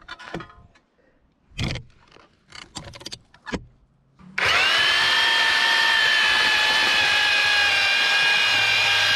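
A few scrapes and knocks of a post-hole digger cutting into dry soil, then about four seconds in a powered earth auger starts with a quick rising whine and runs steadily at high speed, boring a hole into the ground.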